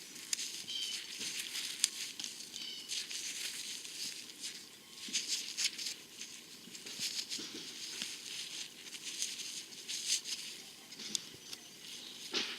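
Irregular scratchy rustling and crackling, close up, with many small clicks, as fingers rub caked dirt off a freshly dug wheat penny to read its date.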